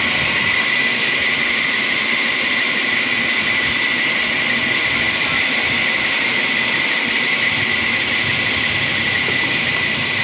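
Sawmill machinery running steadily: a loud, constant mechanical noise with high, unchanging whines.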